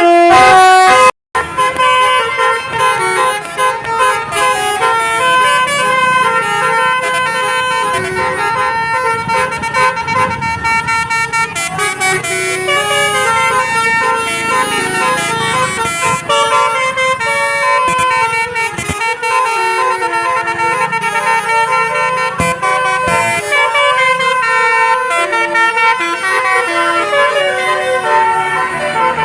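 Bus telolet horn of the Basuri multi-tone kind playing a tune, a run of held notes stepping from pitch to pitch. It is loud and goes on throughout, with a brief break about a second in.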